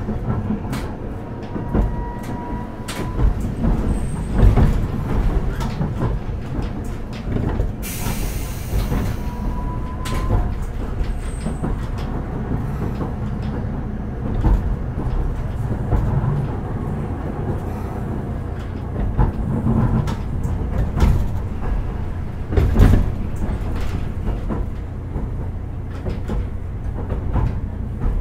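Interior running sound of a Hakodate City Tram 3000 series car with Toyo GTO VVVF inverter control: a steady low rumble of wheels on rail with frequent knocks from the track. Two brief thin tones sound about two and ten seconds in, and a hiss of air lasts about a second around eight seconds in.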